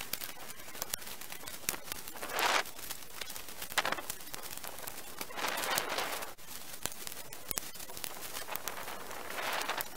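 Dry dead branches and twigs crackling and snapping as they are pulled from a brush pile and loaded into a woven bulk bag, with three louder rustling surges as armfuls are dragged through.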